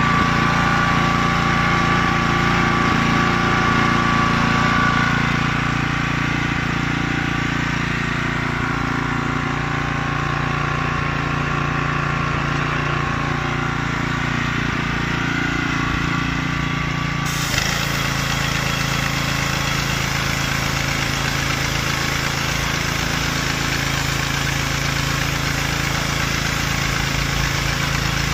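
Small petrol engine of an airless road-marking machine running steadily at a constant speed. A thin steady whine sits over it for the first several seconds.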